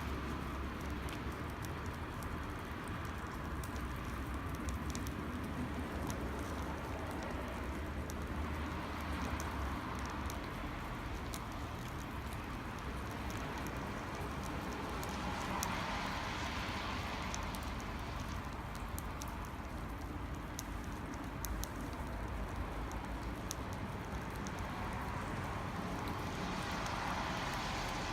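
Wood campfire crackling, with frequent small pops and snaps scattered throughout, over a steady low rumble.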